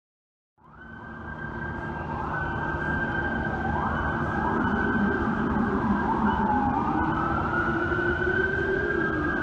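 Several emergency-vehicle sirens wailing at once, their pitches sweeping up and down and overlapping, over a steady low rumble of city traffic. The sound cuts in abruptly about half a second in.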